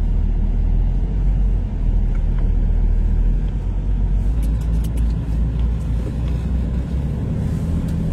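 Semi-truck's diesel engine running with a steady low hum, and a few light clicks about halfway through.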